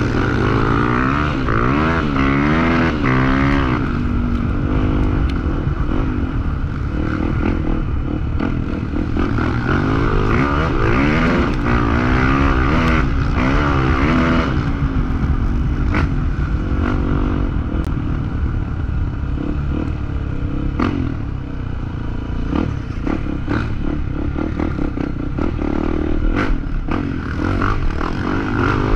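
Off-road motorcycle engine on a trail, revving up and down over and over as the throttle is opened and closed. Scattered knocks and scrapes from the bike over rough ground are mixed in.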